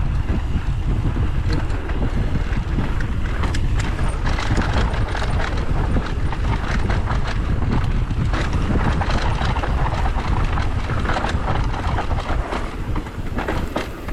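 Wind buffeting the microphone over the steady rumble of tyres rolling on a dirt trail, with frequent short clicks and rattles from the bike jolting over rough, rutted ground.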